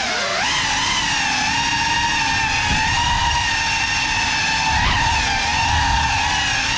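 Ducted props and brushless motors of a GEPRC Cinelog 35 cinewhoop FPV quadcopter on a 6S battery, whining steadily as it flies. The pitch rises about half a second in and wavers with the throttle.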